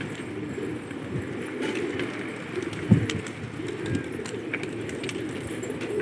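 Domestic gola pigeons cooing: a continuous low, warbling coo chorus with a few louder swells.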